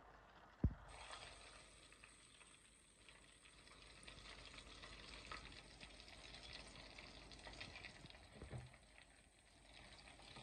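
Chicken deep-frying in hot oil, a faint steady sizzle and crackle. About half a second in there is a single sharp metal knock of the ladle against the pot.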